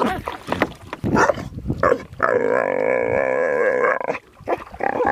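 A dog leaning out of a canoe snaps and splashes at the pond water, then gives a long, slightly wavering whine about two seconds in and a shorter one near the end.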